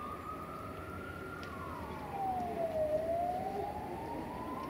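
A train running along the track with a low rumble. Over it, one whining tone climbs, slides down about two seconds in, and climbs again.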